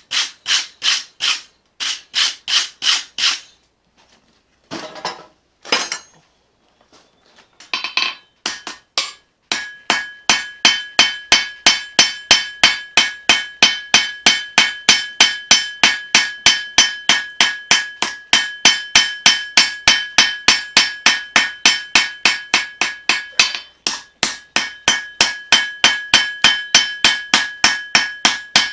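Hammer blows forging a knife blade of leaf-spring steel on an anvil. A few scattered blows with pauses come first, then, about a third of the way in, a steady run of about three blows a second, each with a clear ringing tone from the anvil.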